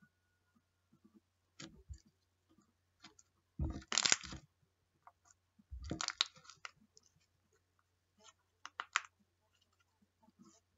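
Slime being squeezed and pressed by hand, giving bunches of crackling, popping clicks with quiet gaps between, the loudest about four and six seconds in.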